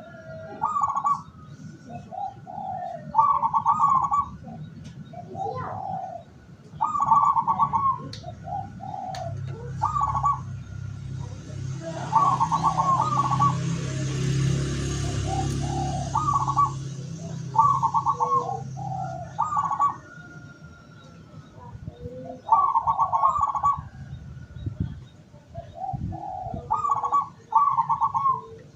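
Zebra doves (local perkutut) cooing over and over, short phrases of quick rolling notes coming every second or two. A low rumble swells up and fades away in the middle.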